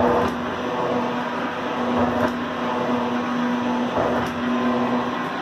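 Alba 4S metal shaper running, a steady motor and drive hum with a faint click about every two seconds.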